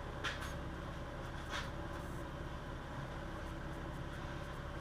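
Steady low background hum with two faint light clicks, about a quarter second and a second and a half in.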